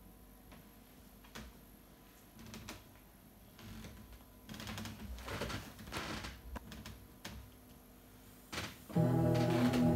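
Quiet room with a few faint clicks and a stretch of rustling movement, then about nine seconds in a backing track of sustained chords starts abruptly and is much louder.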